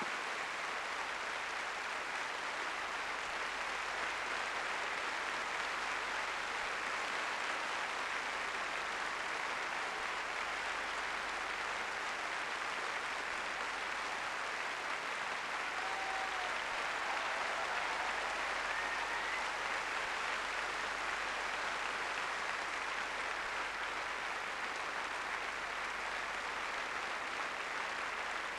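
Large theatre audience applauding, a steady, sustained ovation of many hands clapping.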